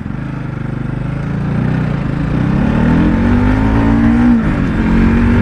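Bajaj Pulsar 200 NS single-cylinder motorcycle engine pulling under throttle, heard from the rider's seat. Its note climbs steadily, falls about four seconds in, then holds steady.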